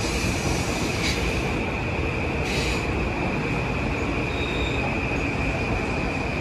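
Metro-North electric multiple-unit commuter train running on the rails, with a steady high-pitched wheel squeal throughout. Two brief bursts of hiss come about one and two and a half seconds in.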